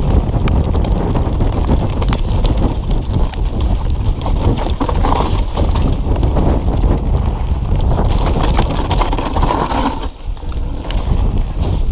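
Mountain bike riding fast down a dirt trail: a continuous rumble of the tyres over the ground, wind buffeting the camera microphone, and a steady run of small knocks and rattles from the bike as it bounces over roots and bumps.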